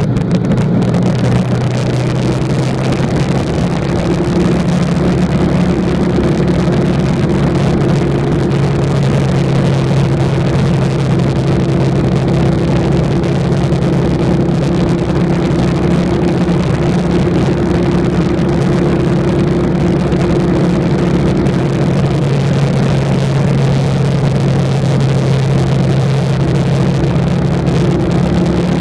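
Harley-Davidson Night Rod Special's V-twin engine running at a steady cruising speed, heard from the saddle over a rush of air and road noise.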